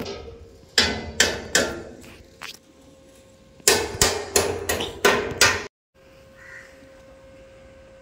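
Rapid sharp knocks on a barred window, about three a second, in two runs of four or five, each with a short ringing tone. The sound cuts off abruptly about three-quarters of the way through, leaving a faint steady hum.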